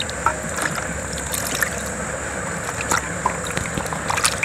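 Hands washing tomatoes, bell peppers and onions in water in a steel plate: water sloshing with scattered small splashes and knocks as the vegetables are rubbed and lifted out.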